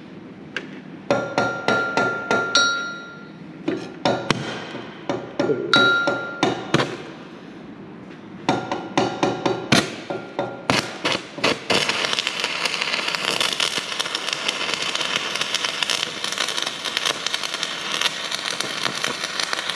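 A stick-welding electrode is tapped again and again against a steel workpiece to strike the arc, making sharp metallic taps and short sputters, some of them ringing. About twelve seconds in the arc holds and the weld runs with a steady crackle.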